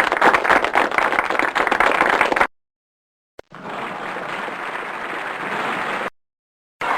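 Applause sound effects: dense, close clapping for about two and a half seconds that cuts off abruptly, then after a second of silence a smoother, steadier wash of crowd applause for about two and a half seconds that also cuts off suddenly.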